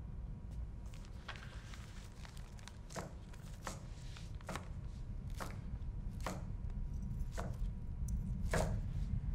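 A kitchen knife chopping on a cutting board, about one stroke a second and slowing slightly, over a steady low rumble.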